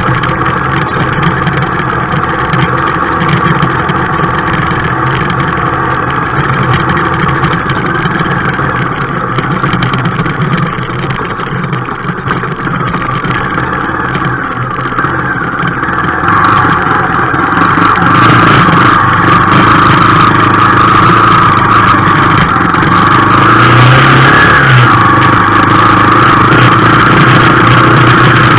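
A motor vehicle's engine running steadily while driving along a rough dirt track; it gets louder about two-thirds of the way through.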